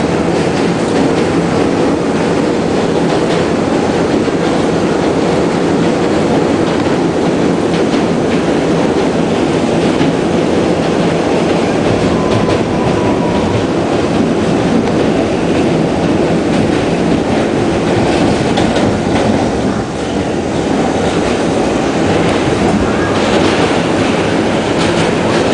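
New York City Subway D train running across the Manhattan Bridge, heard from on board: a steady, loud noise of wheels on the rails and of the car. A faint, brief wheel squeal comes about twelve seconds in.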